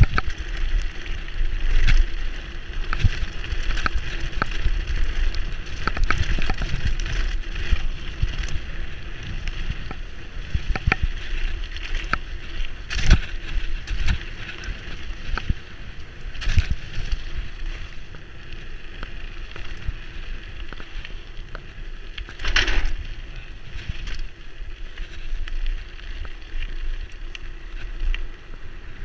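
Specialized Enduro mountain bike rolling fast down a gravel track: wind rumbling on the microphone and tyres crunching over gravel, with the bike rattling and clicking over bumps and a few harder knocks from rougher hits.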